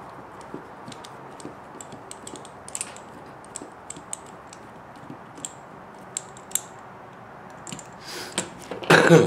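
Small light clicks and ticks from a hex driver turning a screw into the spindle of a radio-control car axle. A louder clatter comes near the end.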